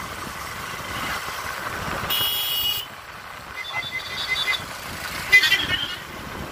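Vehicle horn sounding one short toot about two seconds in, over the low running noise of a vehicle moving along a rough village track. A few shorter, high pulsing sounds follow later, the last of them near the end being the loudest.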